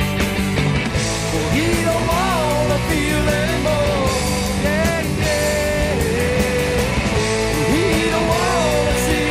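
Rock music with singing and guitar over a steady bass and drum backing.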